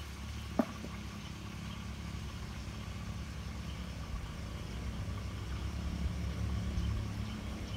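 A low, steady motor hum that slowly grows louder, with one short click about half a second in.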